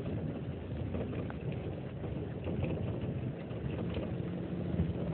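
A vehicle driving on a rough mountain road: steady engine and road rumble with small scattered rattles.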